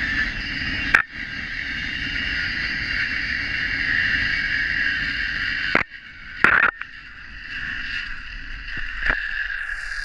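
Zip-line trolley's pulley wheels running fast along the steel cable: a steady high whine over a low rumble, with a few sharp clicks about one second and six seconds in.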